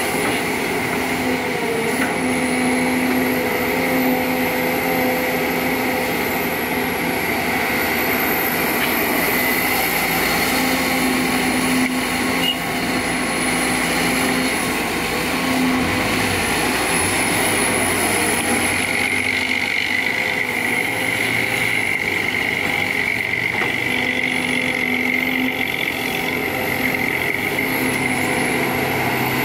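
Sumitomo SH210 hydraulic excavator working, its diesel engine and hydraulics running steadily under load, with a faint high whine that rises and falls.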